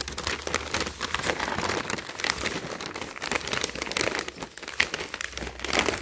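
Large sheet of white wrapping paper being unfolded and handled by hand, crinkling and rustling continuously.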